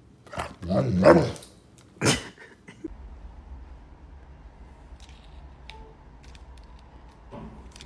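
Black Labrador giving a drawn-out vocal sound in two parts, its pitch wavering, while begging for a biscuit held up to its face. About two seconds in comes one sharp sound. After that there is only a low hum with a few faint clicks.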